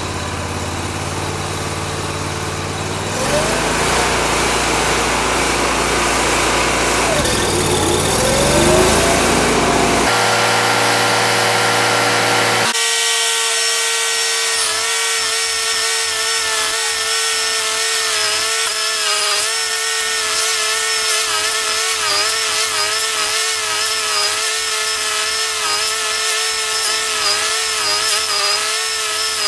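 Toro STX-38 stump grinder running hard, its cutter wheel grinding into a tree stump. The engine gets louder about three seconds in and its pitch dips and rises a couple of times. About thirteen seconds in the sound changes abruptly to a steadier grinding with a wavering pitch as the wheel chews through the wood.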